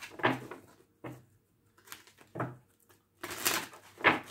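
A deck of oracle cards being shuffled and drawn: a handful of short papery card rustles and slaps, about a second apart.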